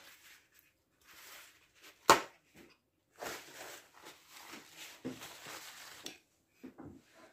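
A single sharp knock about two seconds in, the loudest sound, followed by a few seconds of rustling and shuffling with a few softer knocks, from someone moving around and settling at a dining table.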